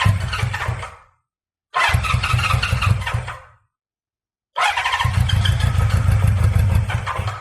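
Honda CB550F inline-four being turned over in three short start attempts, the last and longest about three seconds, with a fast pulsing rumble and gaps between. It is hard to start because fuel has not yet reached every carburettor and the carbs are slightly flooded.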